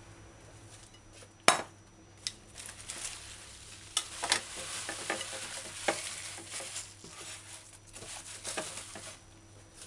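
Fresh callaloo (amaranth greens) rustling as handfuls of leafy stalks are gathered off a counter and dropped into a glass bowl, with a few sharp knocks against the bowl.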